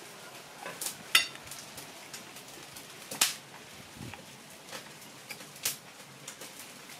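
A person chewing a bite of grilled steak, with a few short, sharp mouth clicks and smacks; the loudest comes about a second in.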